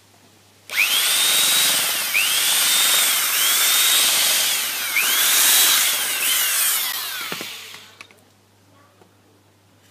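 Corded electric drill boring deeper into a wooden plank: it starts about a second in, and its motor whine rises and dips about five times as the trigger is squeezed and the bit bites into the wood, then winds down and stops.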